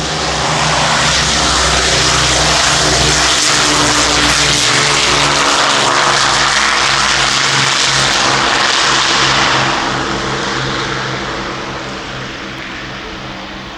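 Second World War piston-engined propeller aircraft flying past: the engine drone swells about half a second in, holds steady, then fades away from about ten seconds in.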